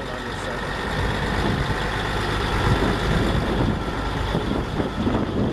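Caterpillar 3406 diesel engine of a 1980 Oshkosh vacuum truck running steadily, getting a little louder after about a second.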